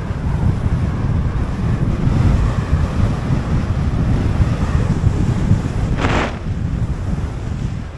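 Wind buffeting the microphone of a skier's camera during a downhill run, over the steady hiss of skis sliding on packed snow. About six seconds in, a short, sharp scrape of the skis' edges.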